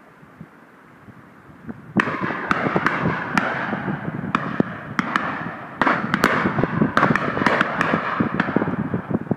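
Shotguns from a line of guns at a driven game shoot firing rapidly, more than a dozen sharp cracks in quick succession starting about two seconds in, over a continuous rush of noise.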